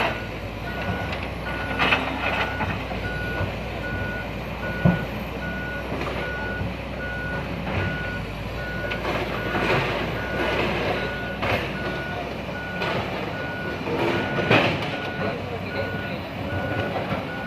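Excavator's warning alarm beeping steadily at one pitch, about two beeps a second, over the machine's running engine, with a few sharp knocks of rock or metal.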